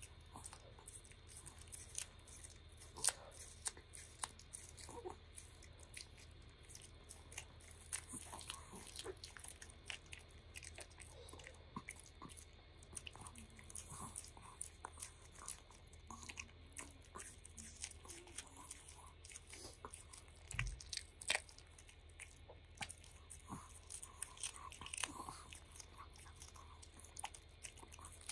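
Long-coat Chihuahua licking and nibbling a thin, round treat held in a person's fingers: irregular small wet clicks and crunches. A soft thump comes about two-thirds of the way through.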